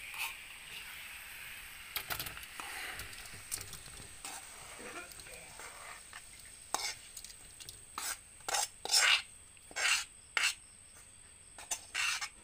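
Metal spatula scraping and clinking against a steel wok as fried pork mixture is scraped out into a steel bowl. The last sizzle from the hot pan dies away over the first couple of seconds, and a string of sharp metal scrapes and clinks follows in the second half.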